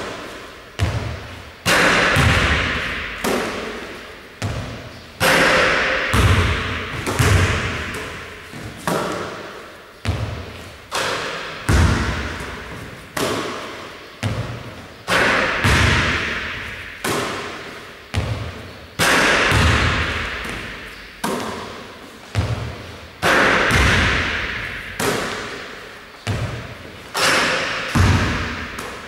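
A basketball bouncing and thudding on a wooden gym floor, about one impact a second, each one echoing through the large hall.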